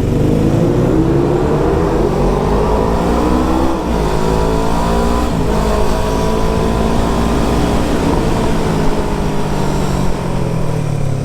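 Suzuki Inazuma 250 parallel-twin motorcycle engine accelerating, rising in pitch through one gear, a gear change about four seconds in, then pulling on and settling at a fairly steady speed.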